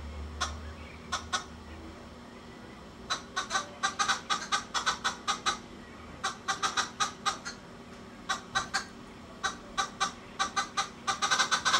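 Green wood hoopoes cackling: runs of short, harsh notes repeated several times a second, coming in bursts that grow denser toward the end.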